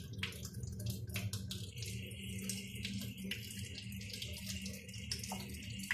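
Water running and splashing in a stainless kitchen sink, with many scattered small splashes and clicks over a steady low hum.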